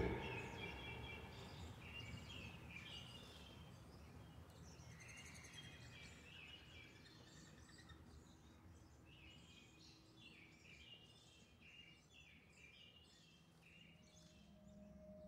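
Faint outdoor ambience with many short, scattered bird chirps over a low background hiss.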